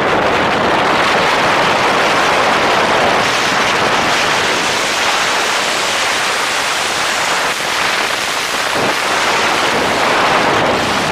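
Loud, steady rush of wind over the microphone of a camera worn by a ski jumper, as the jumper speeds down the inrun and flies off a large ski-jumping hill.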